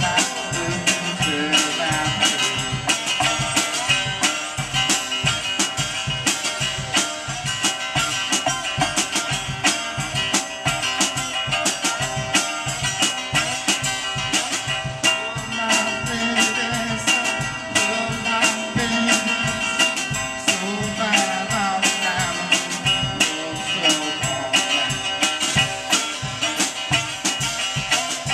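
Live blues-rock played by an electric archtop guitar and a drum kit, with the drums keeping a steady, driving beat under the amplified guitar lines.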